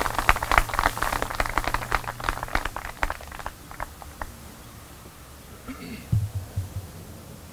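Scattered applause from a small crowd, thinning out and dying away after about three and a half seconds. A short low sound follows near the end.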